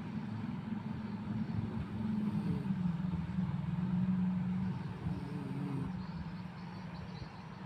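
A sleeping person snoring: a low, rough drone that swells over a few seconds and then fades.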